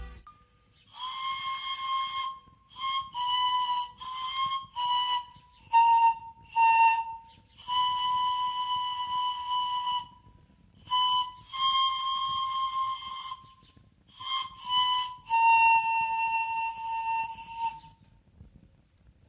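A handmade ash-wood five-hole panpipe, a replica of the Jorvik (Coppergate) panpipe, played in a slow, simple tune of about a dozen breathy, whistle-like notes lying close together in pitch, some held for a second or two, with short pauses between phrases. The pipe is untuned.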